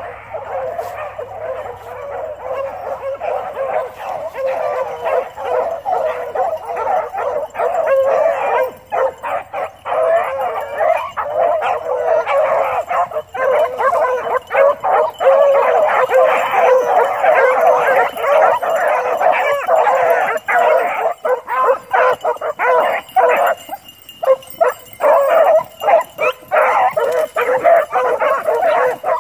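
A pack of beagles baying and yelping together on a rabbit's scent trail, many voices overlapping without a break. The cry grows louder over the first half as the pack closes in, with a brief lull about three-quarters of the way through.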